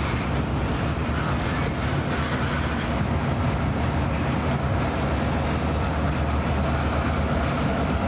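EMD GP38-2 diesel-electric locomotive running steadily as it passes close by, its 16-cylinder two-stroke diesel shoving a long freight train, with rolling noise from the wheels on the rails.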